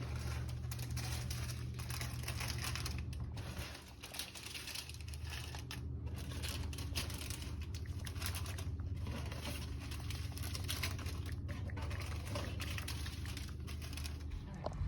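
Plastic snack bags crinkling and rustling as they are handled while restocking a snack vending machine, over a low steady hum.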